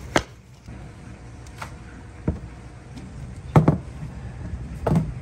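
Hollow concrete blocks knocked down onto one another with a sharp clack, followed by a few more knocks, two of them loud, as a long gutter slope is set down across the block stacks.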